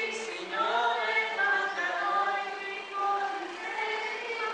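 A group of voices singing a religious hymn together in long held notes.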